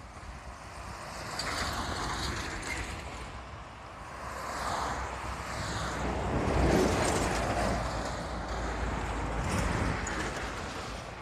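Road vehicles passing at speed on a highway, one after another, each swelling and fading away; the loudest pass comes about two-thirds of the way in.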